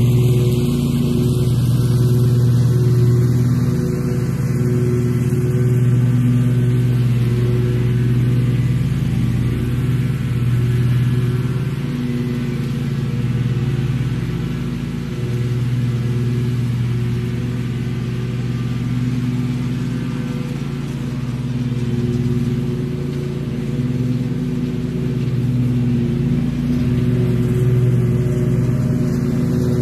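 Bobcat XRZ Pro RS zero-turn mower running steadily at work, a constant engine hum that wavers only slightly in level.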